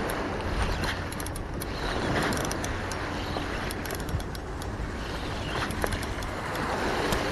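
Shimano Stella SW 14000 spinning reel being cranked against a hooked fish, with rustle of the angler's sleeve and wind on the microphone, and scattered small clicks. A faint, steady low hum runs underneath.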